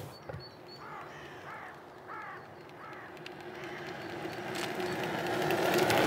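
Bicycle towing a child trailer approaching on a gravel track, its tyres crunching louder as it nears. A bird calls about three times in the first half.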